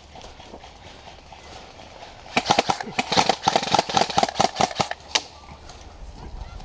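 Airsoft gun firing a rapid string of shots, sharp clicks several a second, for about three seconds in the middle.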